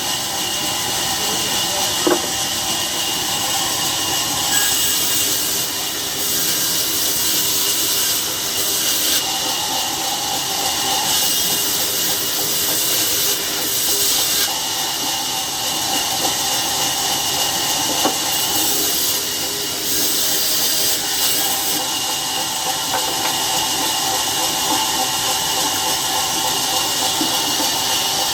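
Sawmill saw running steadily, cutting wood, with a strong hiss and a mid-pitched hum that fades in and out as the cut goes on. There is a single sharp knock about two seconds in.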